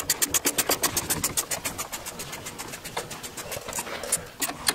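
Hand ratchet wrench clicking in quick, even strokes, about eight clicks a second, as it turns a 12 mm bolt on a coilover's brake-line bracket.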